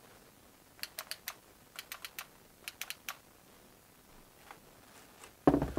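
Hard plastic parts of a cordless pressure washer being handled: irregular clusters of light clicks and taps, with a dull knock near the end.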